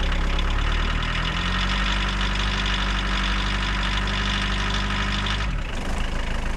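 An engine running steadily; its pitch rises a little about a second and a half in and drops sharply near the end.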